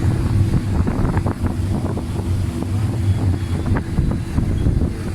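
Steady low rumble with wind buffeting the microphone, with a few faint clicks.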